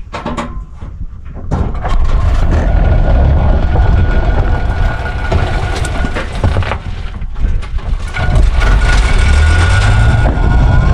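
Electric tricycle with a faulty rear axle, running with a loud, rattling low rumble and a steady motor whine. The noise sets in strongly about a second and a half in, after a few knocks. It is the sign of a rear axle fault that makes the vehicle shake badly.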